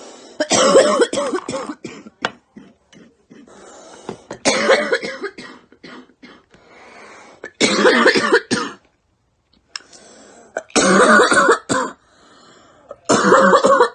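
A girl coughing in fits: five bouts about three seconds apart, each a quick run of loud voiced coughs, with quieter breathing in between.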